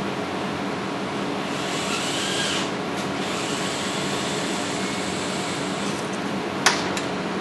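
A metal laser-alignment arm scraping and rubbing against its wall mount as it is shifted to level it, then a sharp click near the end, over a steady room hum.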